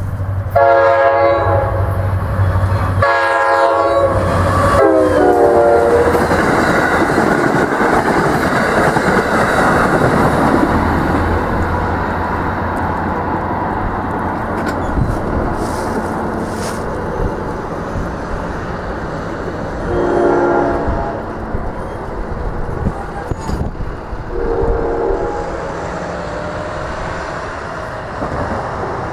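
NJ Transit diesel commuter train sounding its horn three times as it approaches, the third blast dropping in pitch as it passes. This is followed by the loud, steady noise of the train going by. Near the end come two shorter, fainter horn blasts.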